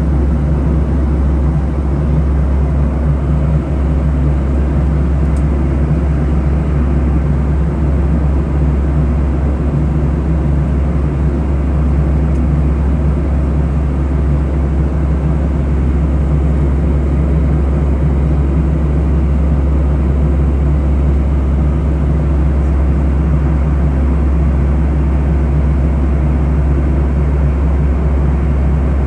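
Steady low drone of a Boeing 737 in flight, heard inside the passenger cabin: engine and airflow noise, unchanging throughout.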